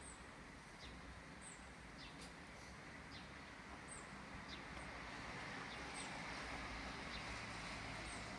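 Small birds chirping over and over, short high chirps every half second to a second, above a faint steady background hiss.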